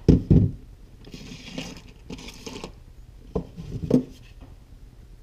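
Handling noise on a wooden workbench: two knocks right at the start, a short rustling scrape, then two more knocks about three and a half and four seconds in.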